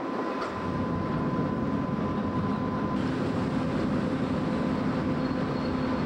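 Ferry's diesel engine running, a steady even rumble with a faint hum on top.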